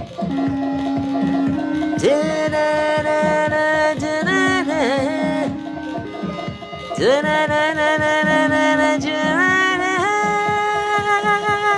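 Improvised music: wordless singing with long held notes and sliding ornaments over an electronic backing with a steady drum beat and a held low note.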